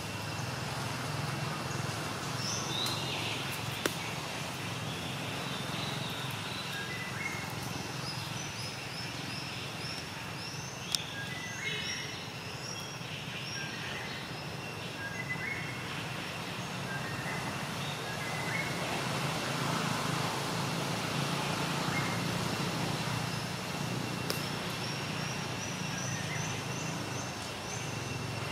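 Forest ambience: small birds chirping in repeated runs of short high notes over a steady low rumble and a thin steady high tone, with a couple of sharp clicks.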